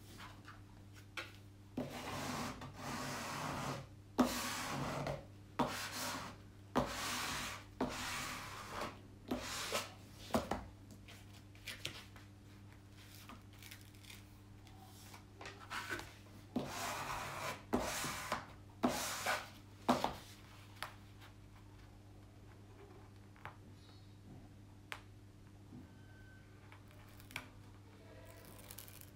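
Hands rubbing the plastic protective film of a diamond painting canvas, smoothing it back down onto the sticky canvas in about a dozen sliding strokes, each under a second. The strokes come in two runs with a short pause between them and stop about two-thirds of the way through, leaving a few light taps.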